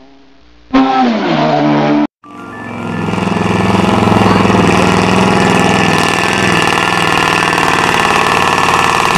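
A brief engine sound falling in pitch, then, after a cut, a heavy off-road trial truck's diesel engine running hard and steady as the truck climbs a slope.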